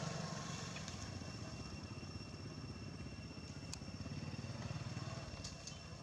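Road traffic: a low vehicle engine rumble that swells as it passes about four seconds in, with a few faint clicks near the end.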